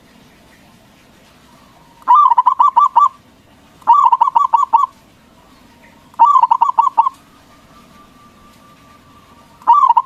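Zebra dove (perkutut) cooing: three phrases of quick rolling notes, each about a second long and a couple of seconds apart, with a fourth phrase starting near the end.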